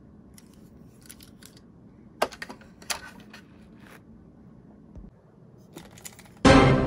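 Light clicks and taps of a small die-cast fire engine minicar being set into the plastic shelf of a toy car-carrier truck, about a second to three seconds in. Near the end, a sudden loud pitched sound starts and fades away.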